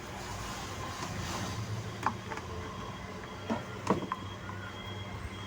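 Screwdriver tightening the screw that clamps a TDA2030 amplifier IC to its heat sink: scraping and handling noise, then a few sharp metallic clicks about two to four seconds in, over a faint steady low hum.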